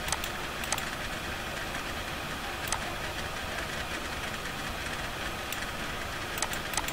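Computer mouse clicking a few times, sharp isolated clicks with two close together near the end, over a steady low background hum and hiss.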